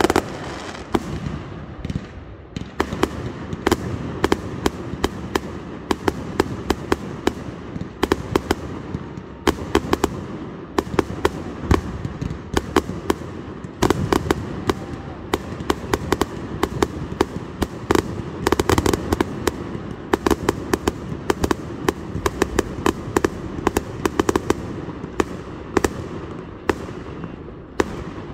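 Fireworks show: aerial shells launching and bursting in quick, overlapping succession, many sharp bangs over a continuous rumble, thinning out near the end.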